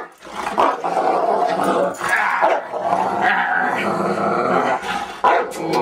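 St. Bernard play-growling in long, drawn-out growls, with a short break about five seconds in.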